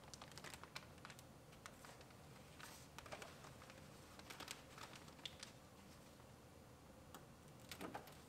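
Faint, irregular small clicks and crinkles as a plastic water barrier is peeled off a car door's inner panel by hand.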